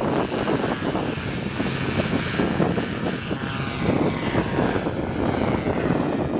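Paramotor's backpack engine and propeller running steadily at takeoff power as the pilot lifts off and climbs out.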